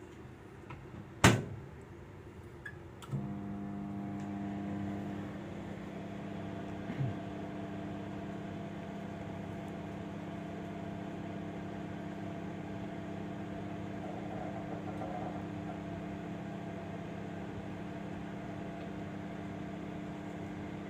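A sharp click about a second in and two lighter clicks, then about three seconds in a microwave oven starts and runs with a steady, even hum of several tones as it heats a bowl of water.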